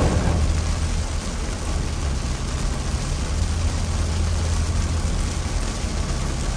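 Heavy rain on a moving car's windshield and body, over the steady low rumble of the car driving on a wet road.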